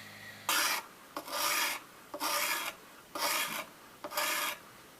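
A knife blade drawn along a whetstone held in a fixed-angle sharpening jig: five scraping strokes, about one a second.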